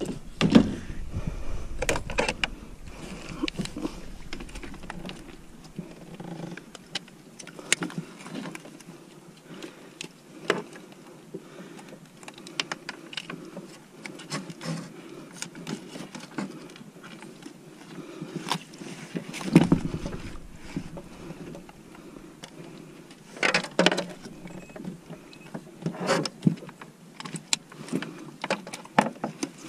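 Irregular clicks, taps and knocks of hands and gear on a plastic kayak deck while a fish is unhooked and measured, with one louder knock about twenty seconds in.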